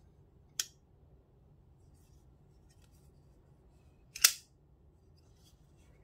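Folding knife with a D2 steel blade on ball bearing washers, snapping twice: a sharp metallic click about half a second in as the blade swings shut, then a louder snap about four seconds in as it is flicked open and locks. Faint small ticks of handling between them.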